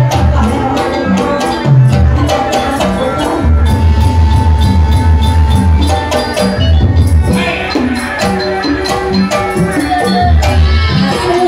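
Live jaipongan music from a Sundanese gamelan ensemble, with deep drum strokes in a driving rhythm under metallic and sung or bowed melody lines, one note held for a couple of seconds in the middle.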